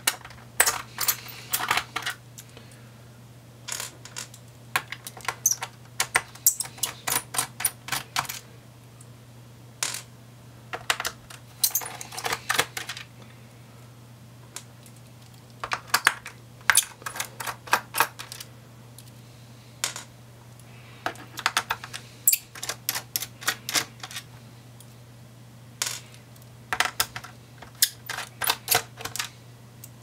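Groups of quick, small metallic clicks and ticks, bunched every few seconds: a size 0 Phillips screwdriver is undoing the laptop's base screws one after another. A faint low steady hum runs underneath.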